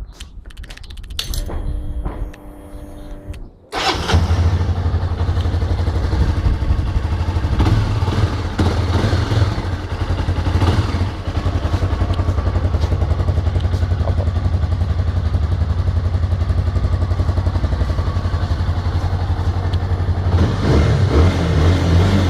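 Honda CB300 single-cylinder engine with its stock exhaust starting about four seconds in, then idling steadily, with a few brief swells in level.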